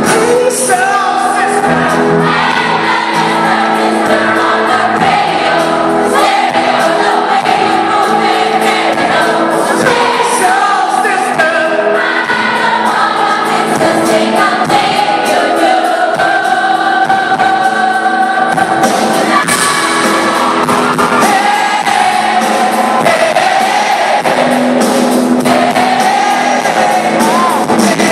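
Live pop-rock band music with a lead vocal and a group of voices singing along, played loud and without a break.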